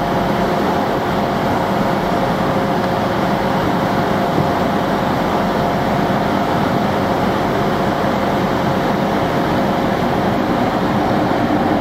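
The diesel engine of a High Speed Train's Class 43 power car running steadily as the train pulls slowly into a platform, a continuous engine rumble with a faint steady whine.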